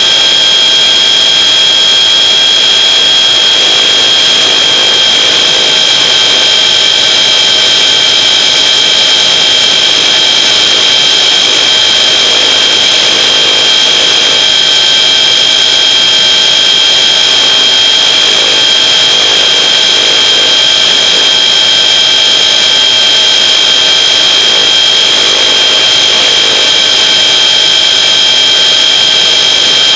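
Traxxas RC car's electric motor and drivetrain running at speed, a steady high-pitched whine with tyre and gear noise from the road, heard close up from a camera mounted on the chassis.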